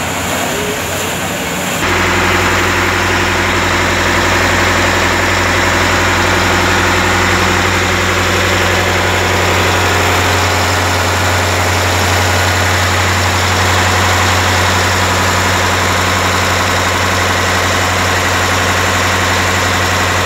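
Reconditioned Mitsubishi marine diesel engine running at a steady speed on a test run, a loud, even low drone. For the first couple of seconds the sound is rougher and mixed with splashing water before it settles into the steady drone.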